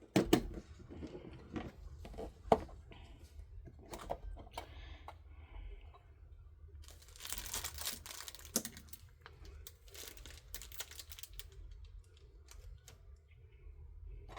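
Crinkling and rustling as small tools and their packaging are handled, with light clicks and knocks throughout. A louder stretch of crinkling comes about seven to eight and a half seconds in.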